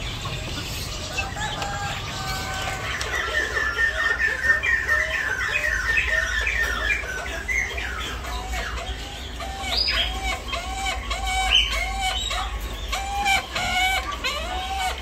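Caged fowl and other birds calling together. A fast run of short repeated calls is followed, in the second half, by a steady series of lower clucking calls at about two a second, with scattered chirps mixed in.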